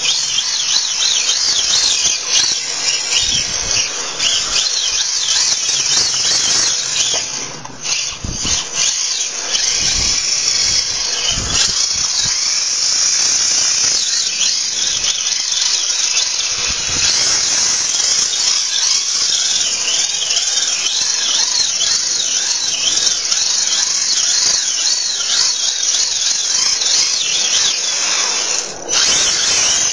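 Electric motor and gears of a Tamiya TA01 radio-controlled drift car whining high-pitched as it drives around, with a hissy edge and a short dip near the end.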